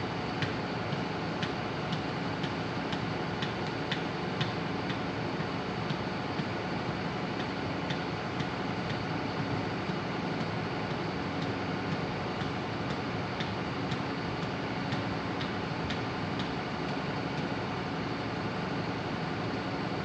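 SANY tracked excavator's diesel engine running steadily, with light clicks about once a second over the engine noise.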